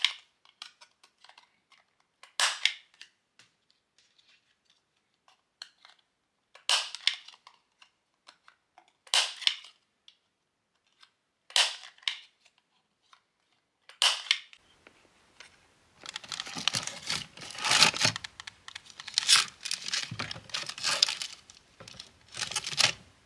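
A handheld corner-rounder punch snapping through paper business cards, a series of sharp snaps a few seconds apart. In the last third, a dense rustle of clear plastic sleeves as packaged charms are flipped through in a box.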